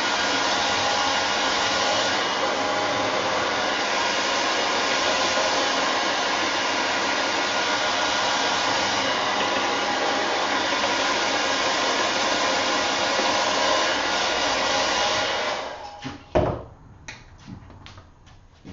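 Handheld hair dryer blowing steadily over wet watercolour paper to dry it, then switched off about fifteen seconds in. A sharp knock follows about a second later, with a few faint clicks after it.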